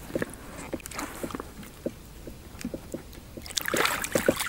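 Small clicks and knocks of fishing line and a plastic-bottle pike rig being handled in an inflatable boat, then a burst of splashing near the end as a hooked pike is grabbed by hand from the water among lily pads.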